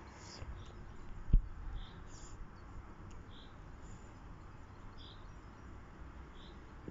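Outdoor storm ambience: a low steady rumble with one sharp, low thump about a second and a half in. In the second half a short high chirp repeats about once a second.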